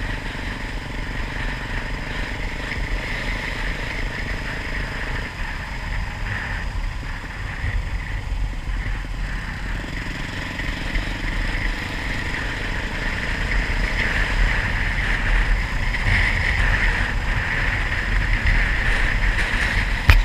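Off-road motorcycle running, a steady engine and rumble noise that gets somewhat louder in the last several seconds.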